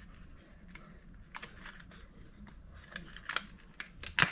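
Light clicks and taps of small parts being handled while working on an open laptop. The clicks come irregularly, a few in the middle, with one sharper click near the end.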